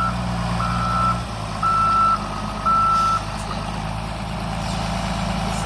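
Diesel loader backing up, its reversing alarm beeping about once a second over the steady running of the engine; the beeping stops about three seconds in while the engine keeps running.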